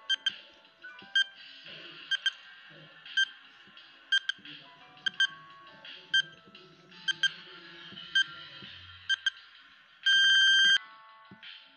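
Countdown timer sound effect: a sharp tick about once a second, some ticks doubled, over soft background music. About ten seconds in it ends with a loud electronic beep lasting under a second as the time runs out.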